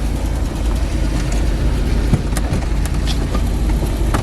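1980 Dodge Ram van engine idling steadily with a low rumble, freshly started after a deep-cold soak at about −30 °C. A few short knocks and clicks come in the second half as the engine cover is handled back into place.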